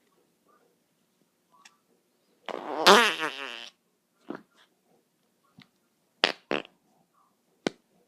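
A fart sound: one loud, wavering fart about two and a half seconds in, lasting just over a second, followed by a few short sharp clicks.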